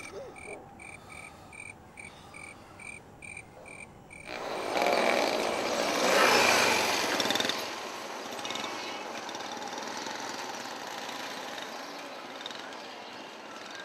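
Rhythmic high chirping of night insects, about three chirps a second, for the first four seconds. Then street traffic noise takes over: a vehicle passes loudly about five to seven seconds in, followed by a steadier traffic hum.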